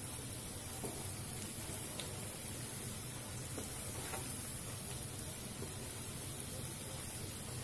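Palak pakoras (spinach fritters) deep-frying in hot oil in a kadhai, a steady sizzle, as a slotted spoon turns them, with a few faint taps of the spoon.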